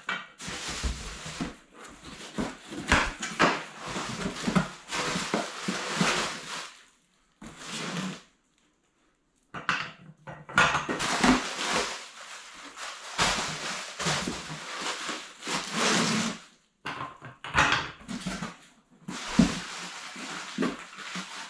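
Irregular rustling of cardboard boxes and plastic wrapping with clinks and clanks of steel tubular A-arms and bagged hardware being handled, and a short silent gap about a third of the way through.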